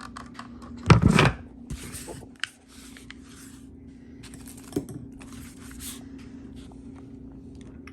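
Handling noise as the opened smoke alarm is worked on by hand: a knock about a second in, then scattered clicks, scrapes and rustles over a faint steady hum.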